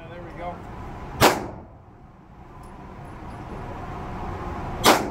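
Two rifle shots about three and a half seconds apart, each a sharp crack with a brief echo off the walls of an indoor range.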